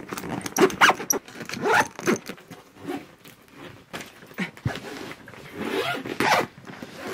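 A woman's voice sped up into fast, garbled chattering, in short irregular bursts.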